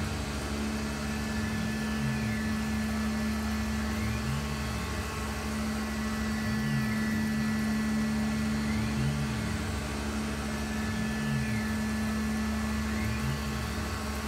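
Tormach 1100 CNC mill roughing a bolt knob under flood coolant: a steady spindle hum over the hiss of the cut and coolant spray. A rise and fall in pitch repeats about every two seconds.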